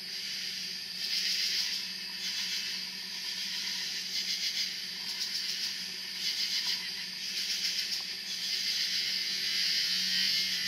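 Night insects trilling together: a continuous high-pitched rasping buzz that swells and fades every second or so, over a faint steady low hum.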